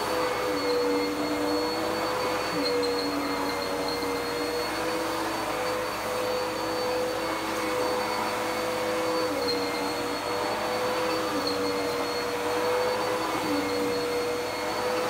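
Dirt Devil PowerMax Pet UD70167 vacuum cleaner running while vacuuming a rug: a steady motor whine whose pitch shifts slightly every second or two.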